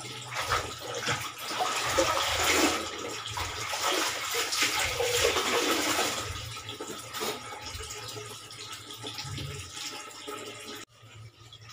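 Water splashing and dripping as a wet white garment is lifted from a plastic basin of soapy water and wrung out by hand. The splashing eases after about six seconds.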